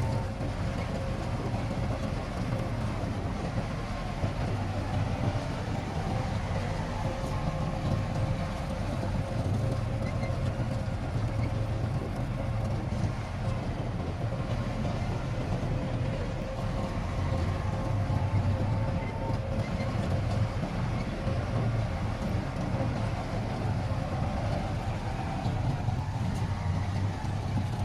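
Heavy construction machine's diesel engine running steadily: a deep drone with a faint constant whine above it.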